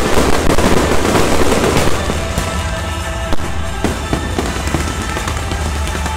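Aerial fireworks bursting and crackling in quick succession, with one sharper bang about three and a half seconds in, over music playing underneath.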